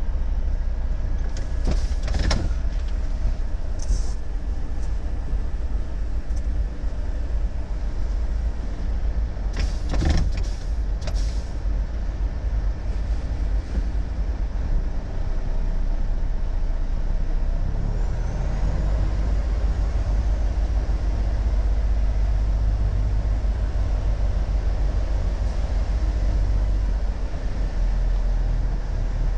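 Volvo FH truck's diesel engine running at low speed, heard from inside the cab, with a few short sharp clicks and hisses about 2, 4 and 10 seconds in. The engine note rises for a moment about 18 seconds in as it pulls away.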